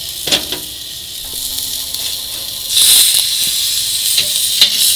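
Thick ribeye steak sizzling as it sears on hot grill grates over charcoal: a steady hiss that grows louder about three seconds in. A few sharp metal clicks, one near the start and two near the end as a spatula touches the grates.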